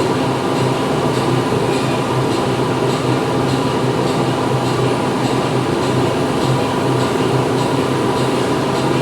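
Factory machinery running steadily: a dense mechanical din with a low hum and a faint, regular high ticking about twice a second.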